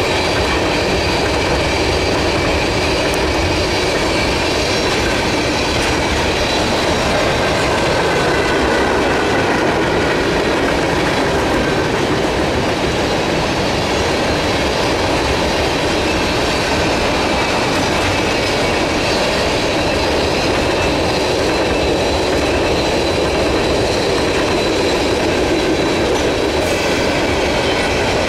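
Freight train tank cars rolling past at close range: a loud, steady rumble and clatter of steel wheels on rail, with faint high-pitched squealing tones from the wheels.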